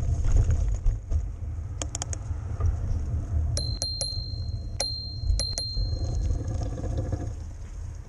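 A handlebar bicycle bell dinged about four times in quick succession midway through, each strike ringing on briefly, as a warning to a car blocking the bike lane. Under it runs a steady low rumble of wind and traffic.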